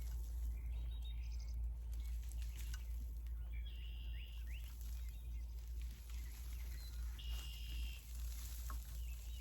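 Birds chirping in short calls, about three times, over a steady low wind rumble on the microphone, with scattered scrapes and rustles of hands working in soil and cardboard.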